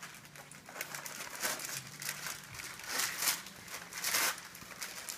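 Gift wrapping paper rustling and crinkling in a series of rustles as a present is unwrapped by hand, the loudest about three and four seconds in.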